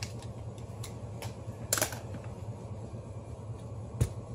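Small clicks and scrapes of a screwdriver and plastic housing parts as a Keyang DDH-1801L cordless hammer drill is taken apart, with a louder scraping rattle just under two seconds in and one sharp knock near the end, over a steady low hum.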